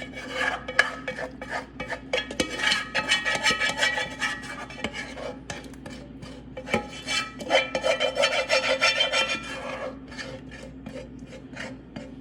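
A utensil stirring and scraping through macaroni and thick cheese sauce in a pan, in quick repeated strokes that come in two heavier spells.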